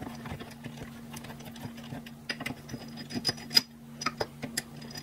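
Small irregular clicks and ticks of a hex driver turning out the long head screws of a VIAIR 450C air compressor, metal tool on the screw heads and aluminium head, with one sharper click about three and a half seconds in. A steady low hum runs underneath.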